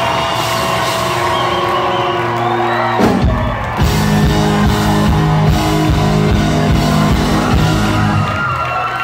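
Live country band with pedal steel guitar, electric guitars, bass and drums playing out the end of a song, amplified in a large hall, with whoops from the crowd. Held notes ring for about three seconds, then the full band hits hard and drives through a fast beat that stops just before the end.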